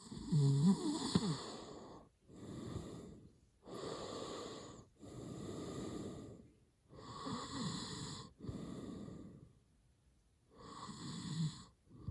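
A man snoring hard in his sleep: a run of about seven noisy breaths in and out, the first the loudest, with a longer pause of about a second before the last one.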